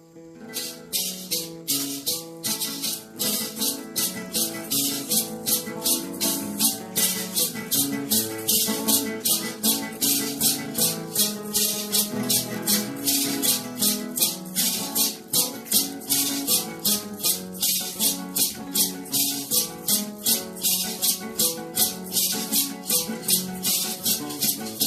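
Instrumental music with a shaker keeping a steady beat of about three strokes a second over plucked-string melody notes.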